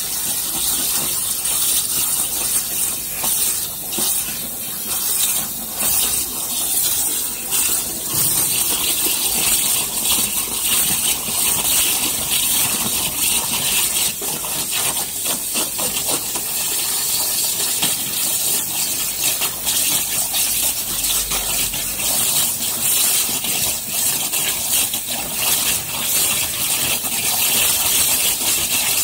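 Five-axis waterjet cutter's high-pressure jet cutting through a slab: a loud, steady hiss of water spray.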